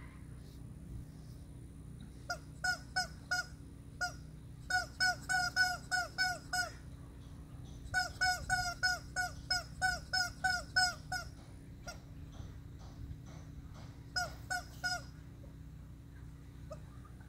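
Rubber chicken squeak toy squawking as a horse bites and squeezes it in its mouth: short honking squawks about three a second, in runs of four to ten with pauses between.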